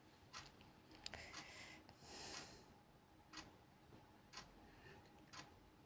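Near silence, with a few faint clicks and one brief soft hiss about two seconds in, from a small glass spice jar and spoon being handled.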